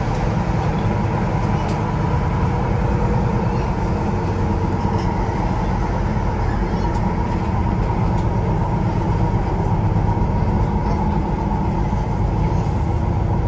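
Tyne and Wear Metro Class 994 Metrocar running along the line, heard from inside the car: a steady rumble of wheels on rails with a steady hum and a few faint clicks.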